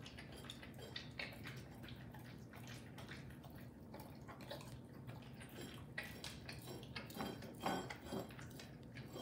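Dog and kitten lapping and licking a wet snack from saucers on a wood floor: irregular wet licking clicks, with the dog's saucer clinking and scraping as he licks and nudges it along. A louder run of licks comes a little before the end.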